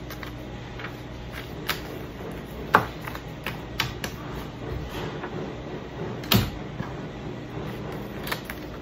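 Sheets of paper being handled and sorted on a desk: light rustling with a handful of sharp taps and clicks, the loudest a little before three seconds in and just after six, over a steady low room hum.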